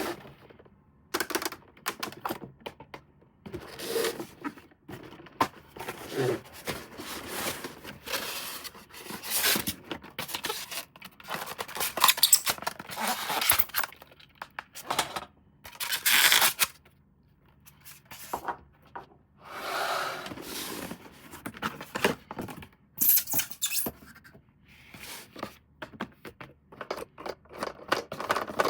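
Hands unboxing and handling an RC toy car and its packaging: irregular plastic clicks and taps mixed with short bursts of scraping and rustling.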